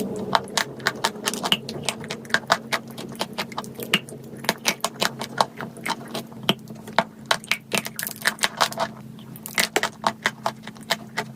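Crunching of dry chalk clay: a dense, irregular run of crisp cracks and crackles, several a second.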